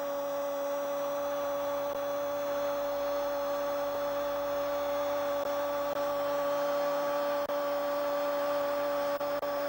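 A steady pitched hum with several overtones.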